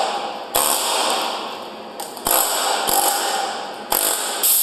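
Pneumatic air chisel hammering hardened concrete off the steel face of a concrete pump piston. It runs in several bursts of rapid chattering blows, each a second or less, starting about half a second in.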